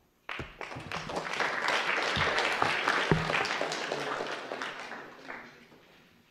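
An audience applauding. The clapping starts abruptly, swells, then thins out and fades away over about five seconds.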